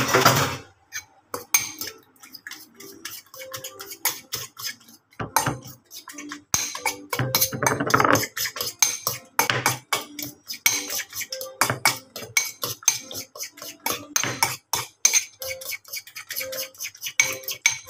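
A metal spoon beating raw eggs in a ceramic bowl: fast, irregular clinking of the spoon against the bowl's sides, some strikes leaving a short ring.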